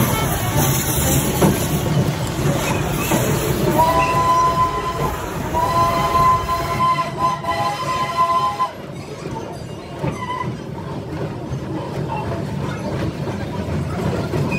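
CPR 2023 steam locomotive's whistle blowing two chord-like blasts, the second longer, about four and six seconds in, over the steady rumble of the train running.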